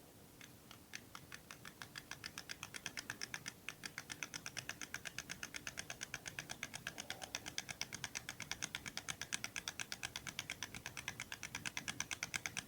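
Rapid, very even small clicking, about seven clicks a second, growing louder over the first couple of seconds and then keeping up steadily.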